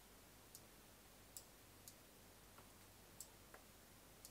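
Faint computer mouse button clicks, about half a dozen at irregular intervals, over near silence.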